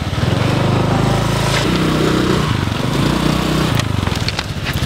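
Automatic motor scooter's small engine running close by, its note rising with the throttle about halfway through and settling back near the end.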